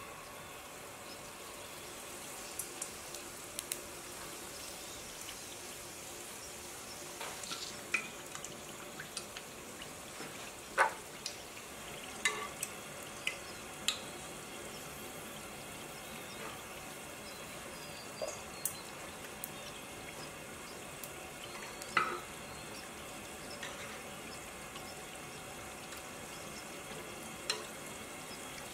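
Cake doughnuts deep-frying in oil brought to about 170 °C: a steady sizzle of bubbling oil, with sharp clicks and pops now and then as they are turned with a wire utensil.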